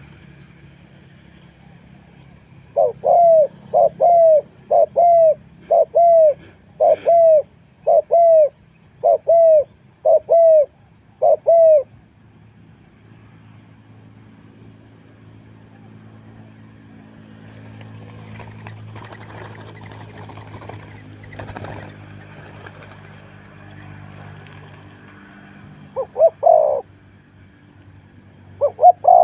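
Spotted dove cooing: a run of about ten loud coos, roughly one a second, then a pause and a few more coos near the end, with faint chirps of other small birds behind.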